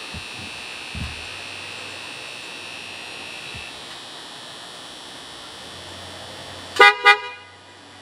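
Car horn honked twice in two short blasts close together, near the end.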